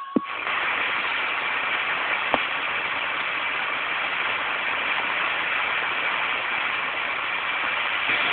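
CB radio receiver hissing with steady static on an open channel once a transmission ends, with a short beep and a click at the start and another click about two seconds in.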